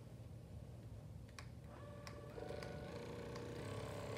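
FitRx Pro percussion massage gun, two clicks about a second and a half in, then its motor starts a faint, steady hum. The pitch shifts in steps.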